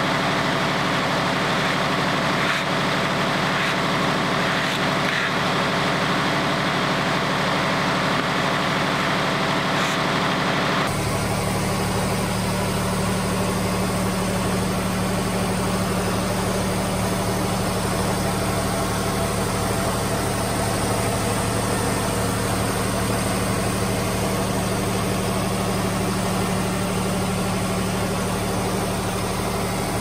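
Wood-Mizer LT40 hydraulic band sawmill running steadily, its engine humming as the band blade saws an oak log. About eleven seconds in, the sound shifts abruptly to a stronger, lower hum.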